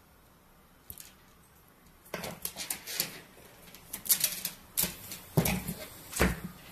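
Hands handling taped radial components and splice tape. A single faint click about a second in, then from about two seconds on a busy, irregular run of clicks, taps and rustles.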